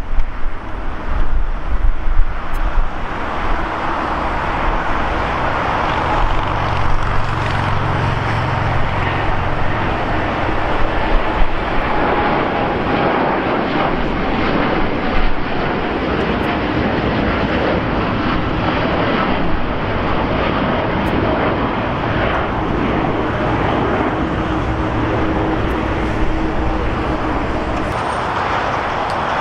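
Boeing 787 twin turbofan engines at takeoff power, a loud, steady jet roar with a low rumble beneath. Gusts of wind buffet the microphone in the first few seconds.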